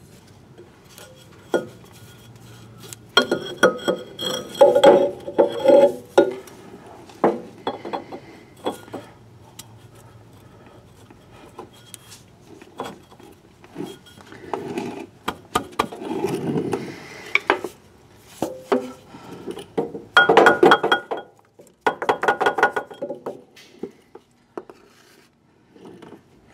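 Metal parts clinking and clanking in three bursts, a few seconds in, around the middle and about twenty seconds in, as the grooved crankshaft pulley of the forklift's Continental engine is handled and worked back onto the crankshaft nose over the new front main seal.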